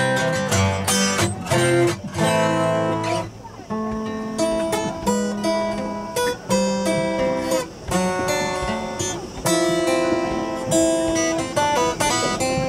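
Two acoustic guitars played together, strumming chords mixed with picked notes.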